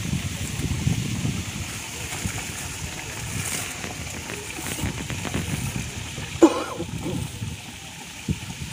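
Wind buffeting the microphone, with dry bamboo leaves rustling as a hand works through the leaf litter at the base of the clump. A short, loud squeak that rises in pitch comes about six and a half seconds in.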